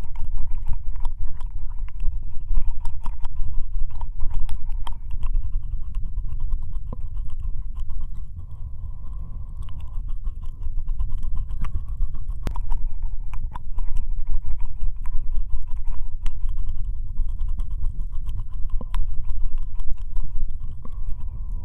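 Ear-licking ASMR mouth sounds recorded close into a binaural microphone: a continuous stream of wet tongue and lip clicks, smacks and slurps, over a steady low rumble.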